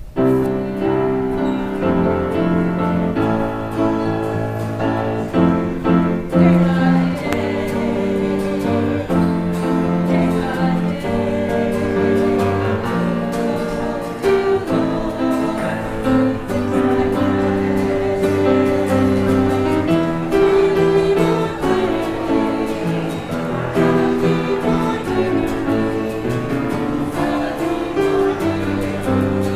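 Closing church music: a choir singing with instrumental accompaniment in held, stepping chords, starting suddenly and going on at a steady level.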